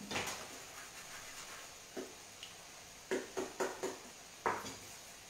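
Strips of frappe dough frying in oil in a frying pan, giving a faint steady sizzle. Over it come a few sharp clicks and knocks: one at the start, one about two seconds in, and a quick run of four or five a little after the middle.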